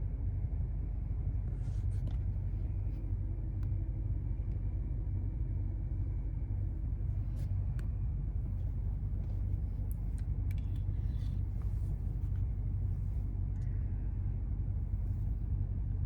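Car driving, with a steady low road-and-engine rumble.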